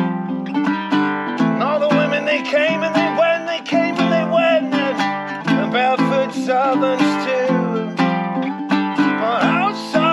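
Ukulele strummed in a steady rhythm of chords, with a sliding, wavering melody line over them.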